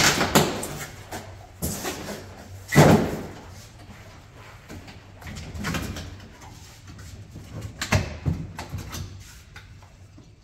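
A motorcycle shipping crate being opened: a run of knocks, bangs and scrapes as its panels are pried loose and pulled away, the loudest bang about three seconds in.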